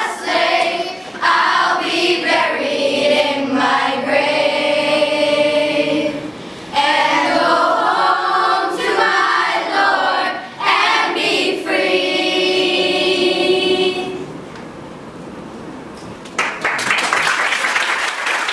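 Children's choir singing together; the song ends about 14 seconds in, and applause breaks out about two seconds later.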